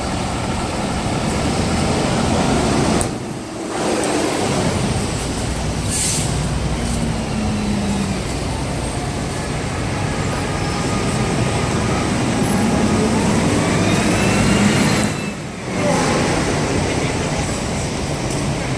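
City street traffic noise: a steady mix of vehicle engines running, with a short high hiss about six seconds in. The sound dips briefly twice.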